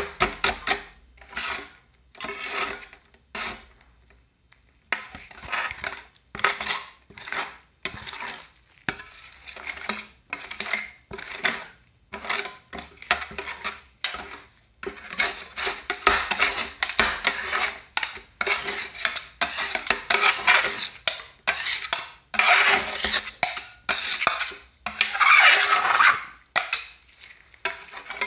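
Two metal spatulas clacking and scraping on the frozen steel plate of a rolled ice cream machine, chopping Cheetos into a pink ice cream base. The strokes start as quick taps, then turn into longer, denser scrapes in the second half as the frozen layer is scraped up off the plate.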